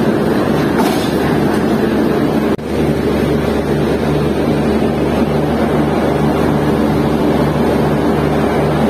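Diesel locomotive's engine idling close by: a loud steady rumble with a low throb that beats about twice a second. The sound breaks off for an instant about two and a half seconds in, then carries on.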